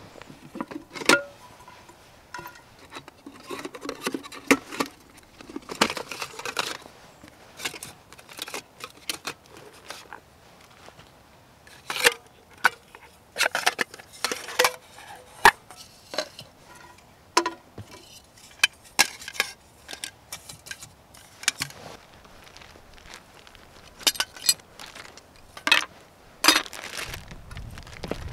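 Hard-anodized aluminium pots, lid and windshield of a Trangia Storm Cooker knocking and clinking as they are lifted apart and set down, a string of separate knocks, some with a brief metallic ring.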